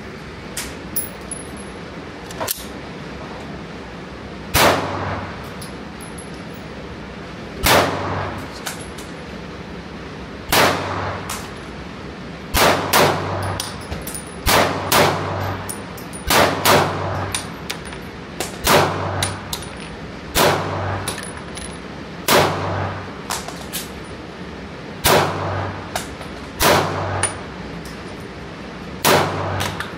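9 mm pistol shots in an indoor range, about fifteen, at uneven intervals with some fired in quick pairs, each followed by a short ring-out.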